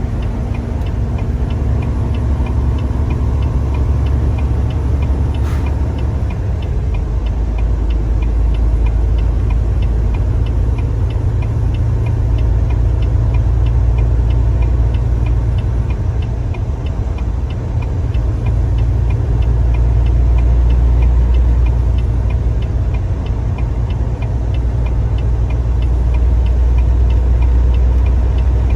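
Steady low rumble of a car in motion, heard from inside the cabin, slowly swelling and easing. Through it runs a faint, regular ticking.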